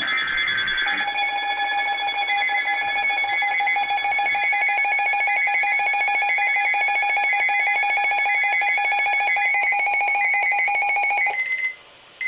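Broadcast emergency-alert attention signal for a severe weather warning: after a brief buzzy burst at the start, a loud steady tone with a higher two-note tone alternating rapidly above it sounds for about ten seconds, then stops. A short single beep follows near the end.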